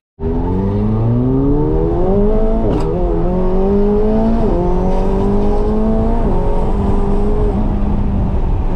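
McLaren 720S twin-turbo V8 accelerating hard from low speed, heard from inside the cabin. The engine pitch climbs in each gear and drops sharply at three quick upshifts, about three, four and a half and six seconds in, then settles to a steadier note near the end.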